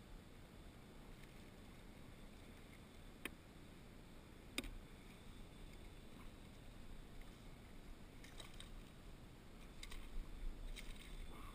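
Low, quiet hiss of open water with two sharp knocks, about three and four and a half seconds in, then a run of small splashes and clicks near the end as a hooked red drum thrashes at the surface beside a kayak.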